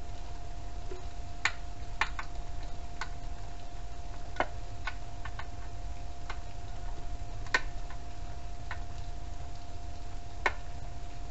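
Scattered sharp clicks and light metal taps, about a dozen at uneven intervals with a few in quick pairs, from hand tools working the mounting bolts of a small scooter engine, over a steady faint hum.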